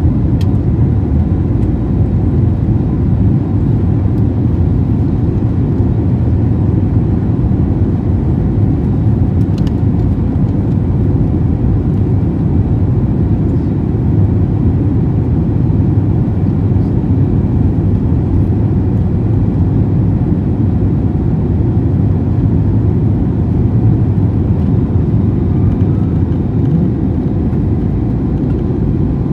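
Steady low cabin roar of an Airbus A321neo climbing out after takeoff, its engines at climb power, with a faint steady whine above the roar.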